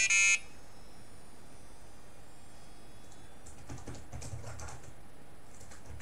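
A short electronic beep from the EEZ H24005 bench power supply as it enters stand-by, its high tones fading away over the next couple of seconds. A few faint clicks follow about four seconds in.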